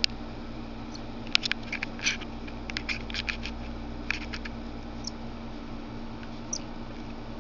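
American robin fledgling giving short, high squeaky chirps in an irregular run with a few sharp clicks mixed in, thinning to two single thin chirps near the end.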